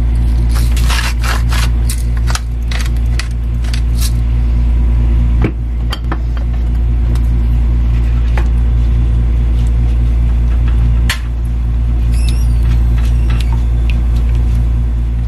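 Microwave oven running with a loud, steady hum. Light clicks and scrapes of kitchen utensils sound over it, most in the first few seconds.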